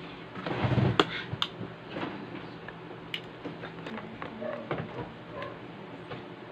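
Light clicks and taps from handling makeup brushes and products, with a louder low bump about a second in, over a faint steady hum.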